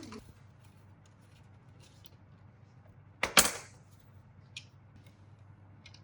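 A single sharp clatter, loud and brief, about three seconds in, followed by two faint clicks, over a low steady hum.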